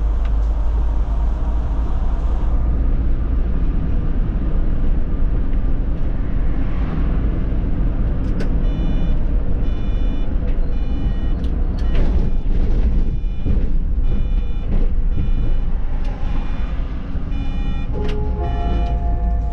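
Solaris Urbino 18 articulated bus running, a steady low rumble of engine and road noise. From about eight seconds in, a repeated electronic beep sounds a little more than once a second.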